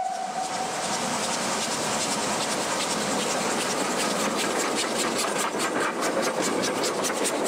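The G42, a 1926 Garratt steam locomotive, running past close by: a steady hiss of steam over the noise of the moving train. A whistle tone dies away in the first second, and a rapid run of sharp beats builds from about four seconds in as the engine passes.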